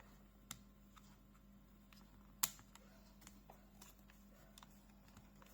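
Mostly near silence with a few scattered, faint clicks from a VGN V87 mechanical keyboard with Dynamic Silver switches, and one sharper single click about two and a half seconds in.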